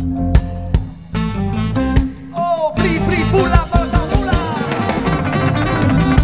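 Live reggae band playing: a sparse bass and electric guitar groove with occasional drum hits, then about three seconds in the full band comes in with guitars, keyboards, saxophone and drum kit.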